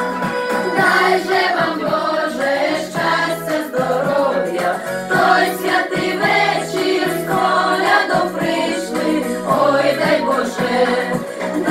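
A group of carolers singing a Ukrainian Christmas carol (koliadka) together, over instrumental backing with held notes; the voices come in about a second in.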